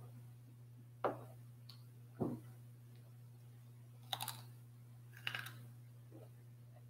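Crunching bites into a raw green vegetable stick: two short, crisp bursts of crunching about four and five seconds in, after two softer clicks earlier on. A steady low hum runs underneath.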